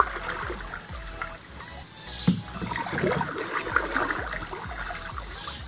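Wooden canoe paddle working through the water in a J stroke, with several splashes and gurgles as the blade is pulled back, twisted and lifted. The loudest splash comes a little past two seconds in.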